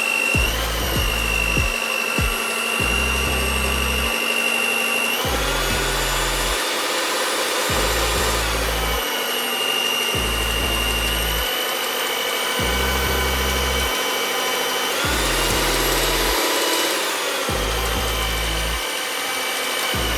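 Cosmos CM-1689 electric stand mixer running with a steady motor whine. The pitch steps up twice and back down twice as the speed setting is changed. Background music with a bass line plays over it.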